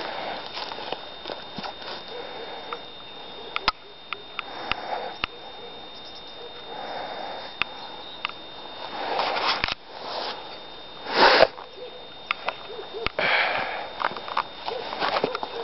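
Footsteps crunching and rustling through dry leaves, grass and twigs, with close sniffing and breathy noises. The loudest is a sharp, noisy sniff about eleven seconds in.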